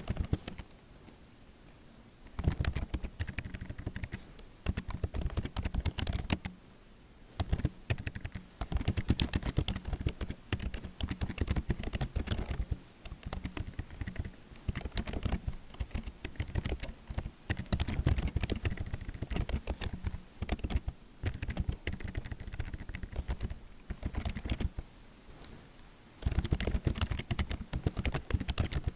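Computer keyboard typing: fast runs of key clicks broken by several short pauses.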